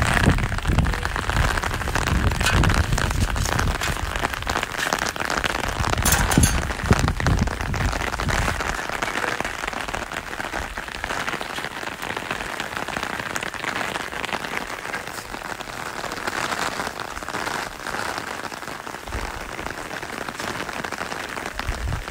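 Rain drumming on a fabric umbrella canopy overhead: a dense, steady patter of drops. A low rumble sits under it for the first several seconds, then falls away.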